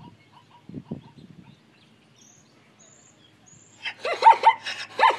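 Zebra barking: a quick run of short, dog-like yelping calls starting about four seconds in.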